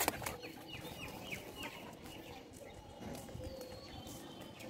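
Faint bird calls: a quick run of about six short, falling chirps in the first second and a half, then a single higher whistled note a little past three and a half seconds.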